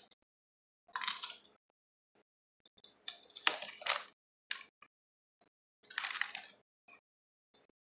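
Close-up crunching of Doritos tortilla chips being bitten and chewed, in three loud bursts about two and a half seconds apart, with small clicks between.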